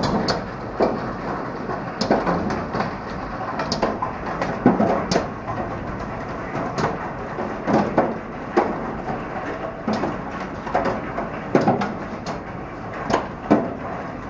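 Small hail falling with rain: a steady hiss broken by uneven sharp ticks and knocks as hailstones strike a corrugated roof.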